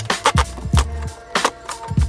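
Hip-hop background music: a steady drum beat of kick and snare hits over a held note.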